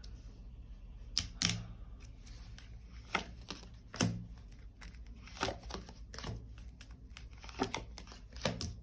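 Tarot cards being shuffled and drawn from the deck by hand: irregular sharp card snaps and taps, one or two a second, with a faint rustle between them.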